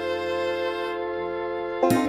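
Background music with held, sustained notes, and a sharp hit near the end as a louder passage begins.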